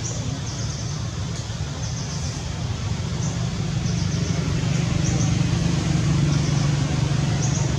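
A motor vehicle running steadily, growing louder from about halfway through, with short high chirps repeating over it.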